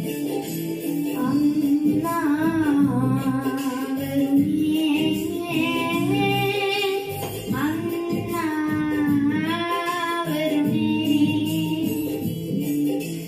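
A boy singing into a handheld microphone over backing music. His voice comes in about two seconds in with long held notes that bend and waver in pitch.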